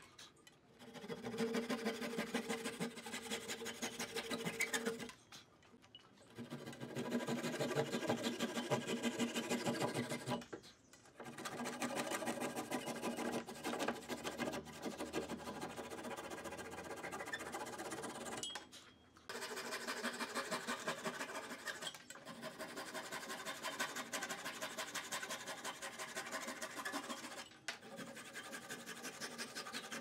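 Flush-cut hand saw rasping through small protruding wooden wedges to trim them level with a hardwood board. The fast back-and-forth strokes come in runs of several seconds, broken by about five short pauses as the saw moves to the next wedge.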